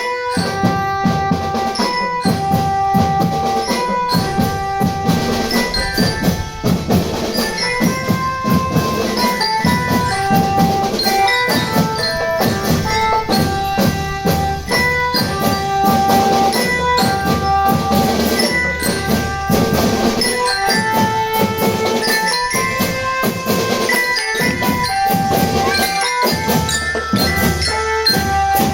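Indonesian marching drum band playing: a steady beat on marching drums and cymbals under a melody of held, pitched notes.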